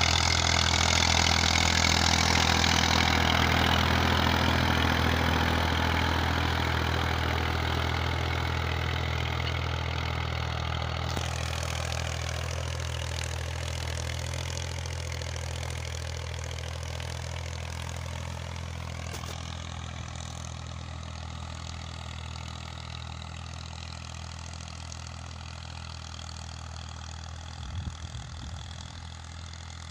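Massey Ferguson 240 tractor's three-cylinder Perkins diesel engine running steadily while pulling an 18-disc harrow through the soil. It grows steadily fainter as the tractor moves away.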